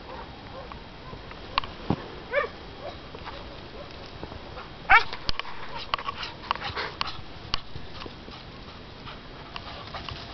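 A dog whining in short rising yelps, once about two and a half seconds in and again, louder, about five seconds in. Scattered sharp clicks and crackles run through the middle.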